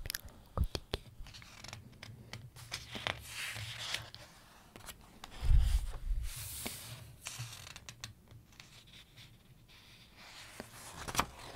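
Pages of a large book being turned and smoothed by hand: paper rustling and swishing, with light taps and scrapes of fingers on the paper. A soft thump about five and a half seconds in, as the page is laid down, is the loudest sound.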